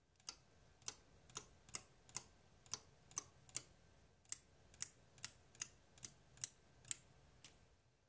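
Relays on an HHC-N8i8OP eight-channel network relay module clicking as they are switched on and off one after another from the control software. About sixteen sharp clicks at an uneven pace of roughly two a second, stopping about half a second before the end.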